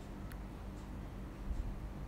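Quiet room tone: a low steady hum, with a few faint short ticks from handling.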